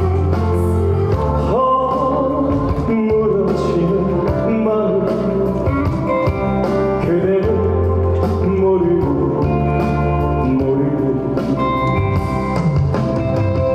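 Trot music playing: a band backing track with a bending melody line over a steady low bass.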